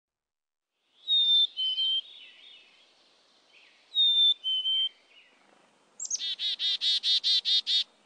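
Black-capped chickadee whistling its two-note fee-bee song twice, a clear higher note dropping to a lower one. Then it gives its chick-a-dee call: a quick high opening note followed by a rapid run of about nine buzzy dee notes.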